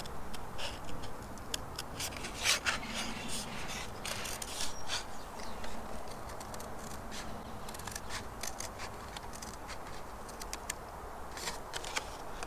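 Thin card being cut along the edges of a square: a run of short, irregular cutting and scraping strokes.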